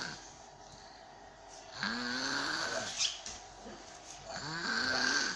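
A sleeping person snoring loudly, with two long snoring breaths about two and a half seconds apart. Each has a pitched tone that rises through the breath.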